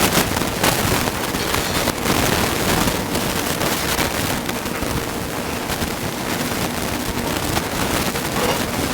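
Kedgeree of rice, flaked smoked haddock, butter and milk sizzling and crackling in a hot pan as it heats through.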